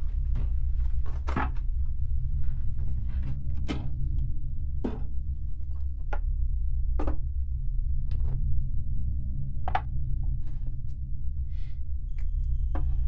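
Kitchen cupboard and its contents being handled: scattered knocks and clicks, about one every second or two, as a cabinet door is worked and items are taken out and set down, over a steady low drone.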